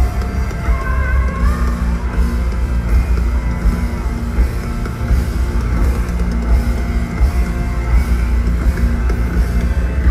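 Loud, dense rock music with drums and guitars, with a few sliding pitched tones.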